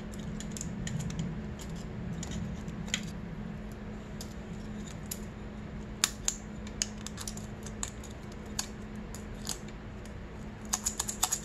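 Light metallic clicks and ticks of a steel feeler gauge being slid and handled against the cam lobes and valve buckets of a Honda CRF250R cylinder head while the valve clearances are measured, with a quick run of clicks near the end. A steady low hum sits underneath.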